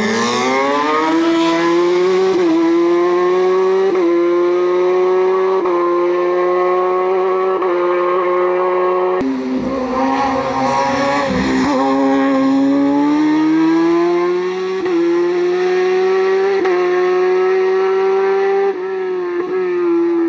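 Race car engine running hard on a hillclimb, its pitch climbing and then holding with small drops every couple of seconds. There is a sudden jump in the sound about nine seconds in, after which it builds again.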